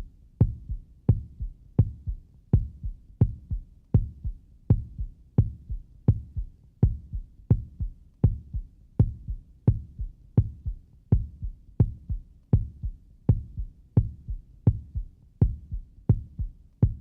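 Heartbeat sound effect: a steady, normal heart rhythm of paired lub-dub beats, about 85 a minute.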